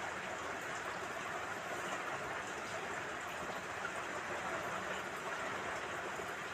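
Green chillies, peas, coriander seeds and turmeric frying in hot oil in a large iron kadai: a steady sizzle.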